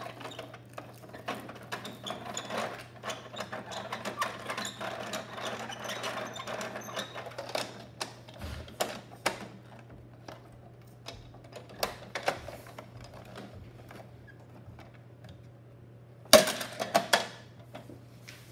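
Plastic parts of a Bruder toy garbage truck clicking and rattling as it is worked by hand: busy for the first half, then scattered clicks, with a short loud clatter near the end.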